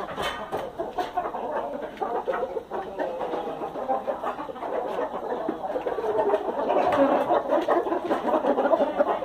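Chickens clucking continuously, with many short overlapping calls that grow louder in the second half.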